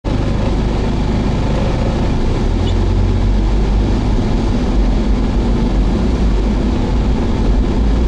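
Steady low road and engine noise heard inside a moving car's cabin, the tyres rumbling on a concrete road.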